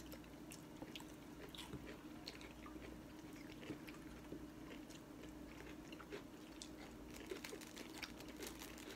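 Faint sounds of people eating at a table: chewing and biting, with scattered small clicks of chopsticks and spoons against ceramic bowls, over a low steady hum.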